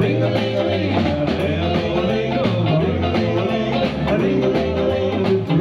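Live 1950s-style doo-wop band playing an instrumental passage: drums, double bass, guitar and saxophone, with a bass line stepping under moving melody lines.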